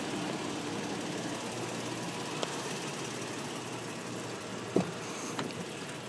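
2008 Toyota Tacoma pickup idling, a steady low hum under a hiss, with a few sharp clicks, the loudest about three-quarters of the way through.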